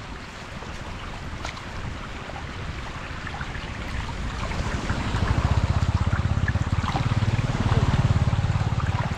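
Shallow floodwater running across a paved road in a steady rush. From about halfway a small motorbike engine grows louder as it comes close through the water.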